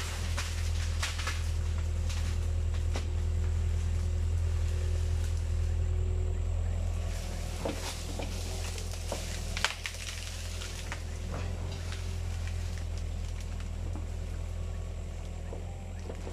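Caterpillar 305.5E2 mini excavator's diesel engine running steadily while the machine works soil, with scattered knocks and scrapes of the bucket. A sharp clank comes about ten seconds in, and the engine eases slightly after it.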